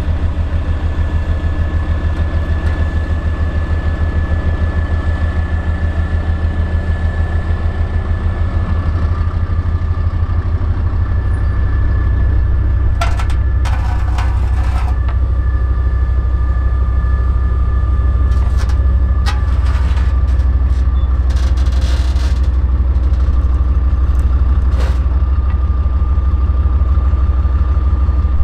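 Bergepanzer 2 armoured recovery vehicle's ten-cylinder diesel engine idling with a steady, fast low pulse, getting a little louder about halfway through. A faint whine runs over it, and a few short knocks and rattles come around the middle.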